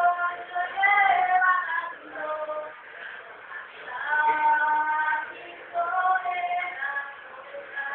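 A woman singing solo, holding long notes in phrases with short breaks between them and a brief pause about three seconds in.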